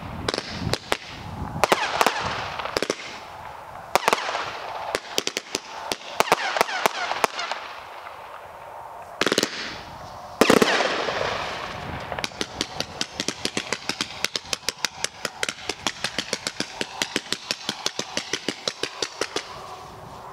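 Grand Patriot 'Big Kahuna' 168-shot fireworks cake firing: sharp launch reports and bursts overhead at uneven intervals, then, a little past halfway, a fast steady run of shots, about four a second.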